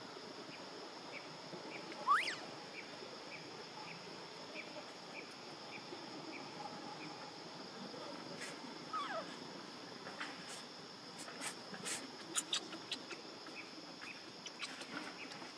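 A baby macaque cries out with a short, shrill rising call about two seconds in and a falling call near the middle. Behind it runs a steady insect drone with a chirp about twice a second. In the second half come scattered clicks and rustles in the leaves.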